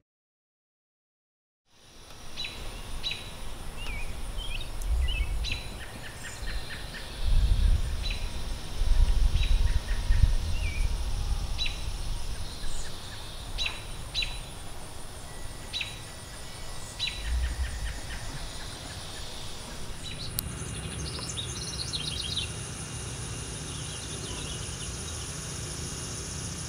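Outdoor birds chirping and calling: short, high chirps come about once a second after a second or two of silence, with a busier burst of song about 20 seconds in. A low rumble runs underneath, strongest a third of the way through, and a faint steady high tone joins later.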